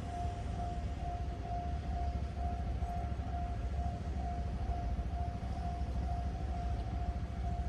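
Japanese railway level-crossing warning bell ringing, a single electronic tone repeating evenly without a break, over a low rumble.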